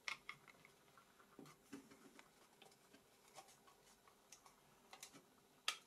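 Faint, scattered small clicks and taps while a flex-cable connector is being fitted onto a Nokia Lumia 900's board, a sharper click near the start and another near the end.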